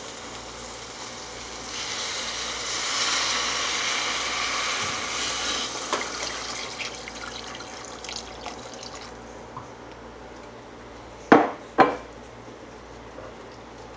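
About a quart of water poured from a glass measuring cup into a stew pot: a steady splashing that swells a couple of seconds in and tails off over several seconds. Two short knocks come near the end.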